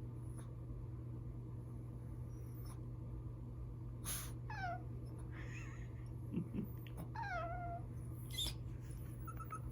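A hungry cat making two drawn-out calls, each sliding down in pitch, the second ending on a held lower note: begging to be fed.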